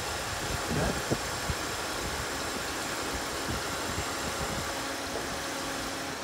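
Car engine idling steadily with the bonnet open, with a plastic tarp crackling as it is spread over the engine bay in the first second or so.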